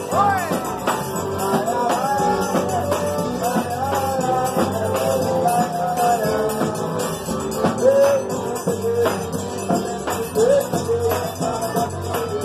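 Dance music with a singing voice over a steady beat.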